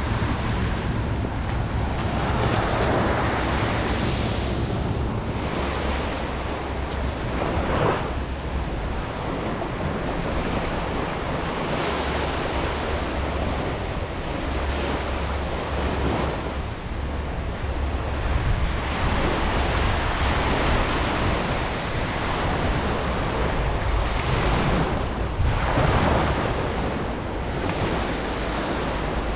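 Small surf breaking and washing up a sandy beach, swelling and fading every four or five seconds, with wind rumbling on the microphone.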